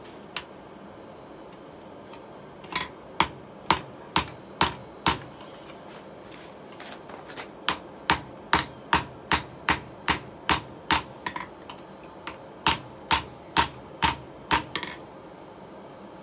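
Hand hammer forging a red-hot steel pipe on an anvil: sharp, ringing metal-on-metal blows about two a second, in three runs with short pauses between.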